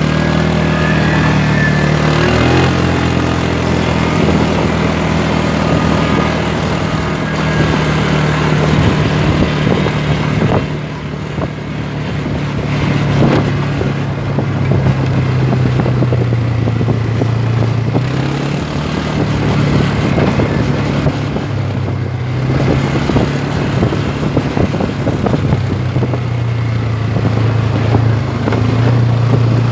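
Quad bike (ATV) engines running along a dirt trail, the engine note stepping up and down with the throttle. Knocks and rattles from the rough ground run throughout.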